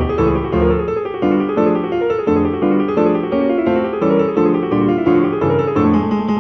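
Background piano music: a quick run of notes over a moving bass line, with a note held near the end.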